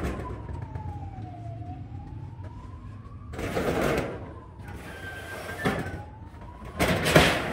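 A siren wailing, its pitch sliding slowly up and down. Two short, loud bursts of noise cut across it, about three and a half seconds in and again near the end.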